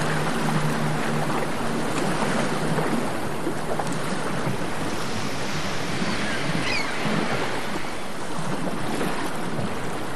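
Wind rushing over the camera microphone as a steady hiss, with a faint low hum in the first few seconds and a brief high chirp about seven seconds in.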